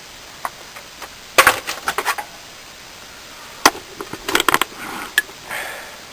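Metal objects clinking and knocking, handled in two quick clusters of sharp clanks, one about a second and a half in and one around four seconds, with a single clink near five seconds.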